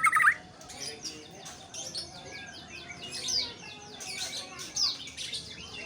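White-rumped shama and birds chirping: a loud rising warbled phrase right at the start, then quick series of short falling chirps repeating throughout.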